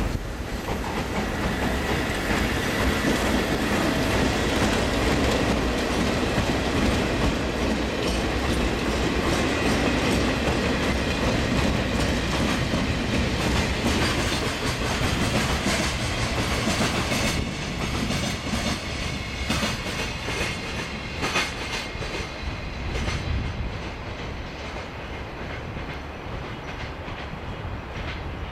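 Container freight train wagons rolling past, a steady rumble of wheels on rail with clicking over the rail joints. The sound drops noticeably about two-thirds of the way through, leaving scattered clicks.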